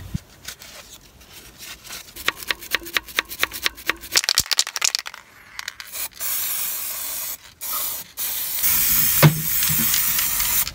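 Aerosol degreaser sprayed onto a marine diesel engine: a run of rapid clicks for a few seconds, then a hissing spray in three bursts, the last the longest.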